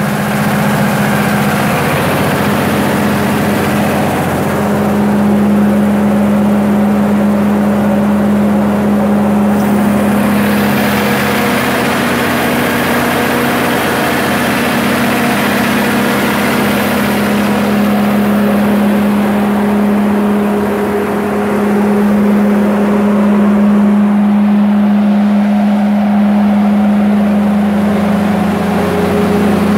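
Cummins 6B six-cylinder turbo-diesel generator set running steadily, a loud even engine drone with a constant low hum.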